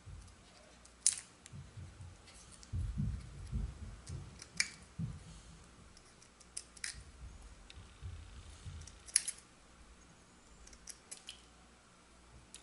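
Scissors snipping a thin cherry wood shaving into small wedges: a handful of sharp, irregular snips, the loudest about a second in and near the end, with soft low bumps of handling in between.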